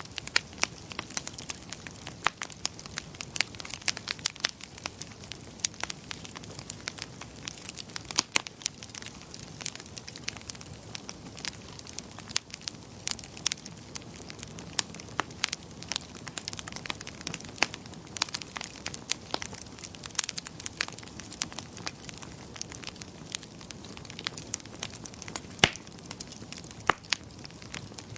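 Wood fire crackling in a fireplace: a steady scatter of sharp pops and snaps of varying strength over a soft low rush of flame, with one louder pop near the end.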